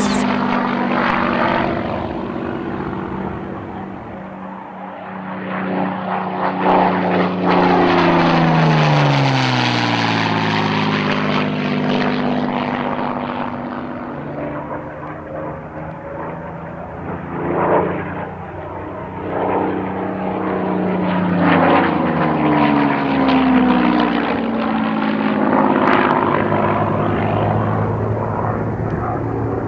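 Supermarine Spitfire Mk.XVIe's Packard Merlin V12 engine droning as the aircraft flies past, twice, its pitch falling as it goes by.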